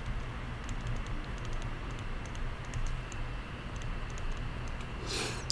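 Faint, irregular tapping and scratching of a stylus writing on a tablet, over a steady low hum.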